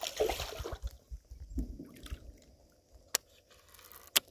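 Close handling noises as a caught bass is brought aboard a kayak: muffled bumps and rubbing for the first two seconds, then two sharp clicks about a second apart.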